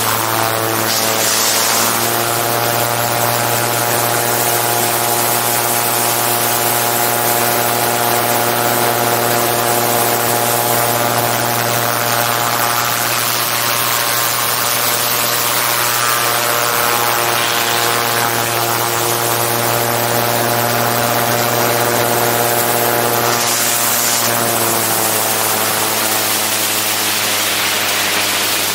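Gyroplane's engine and pusher propeller running at steady power in flight, heard close up from a camera mounted on the airframe, with wind rushing past. The engine note shifts slightly about a second in and again near the end.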